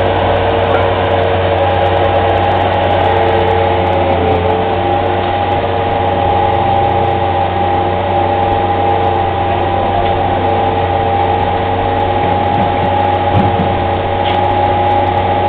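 Skid-steer loader's engine running steadily, with a steady high whine over its low drone, as the loader works its loaded bucket.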